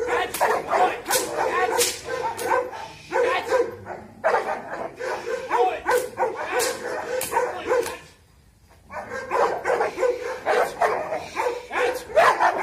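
Dogs barking in rapid, repeated volleys, a leashed guard dog being worked up against an agitator in protection training. The barking breaks off for about a second past the middle, then resumes.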